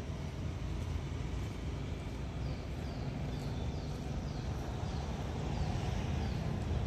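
Steady low outdoor rumble. From about two and a half seconds in, a string of short, high, falling chirps repeats about two to three times a second.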